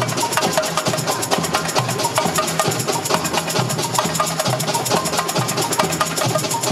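Samba music driven by a fast, dense percussion beat: sharp high strokes in quick succession over deeper drum hits, with some pitched notes above.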